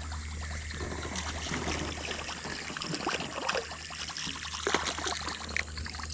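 Water trickling and splashing at the side of a jon boat, with scattered light ticks and handling noise over a steady low hum.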